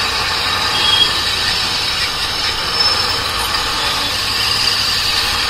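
Royal Enfield Interceptor 650's parallel-twin engine running at a low, steady pace in slow traffic, mixed with the steady road noise of the truck and vehicles around it.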